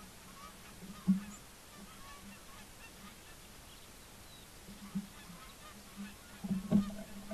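A flock of geese honking in flight: a stream of repeated honks, with louder calls about a second in and again near the end.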